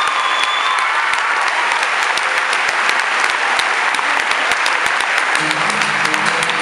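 Audience applauding a stage dance performance, dense steady clapping. About five seconds in, music starts up again under the clapping.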